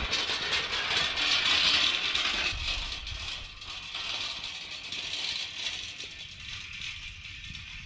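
Old rusty iron-wheeled hand-cart frame rattling and clattering as it is pulled over dry ground. The rattle is loudest for the first couple of seconds, then drops back behind a steady high hiss.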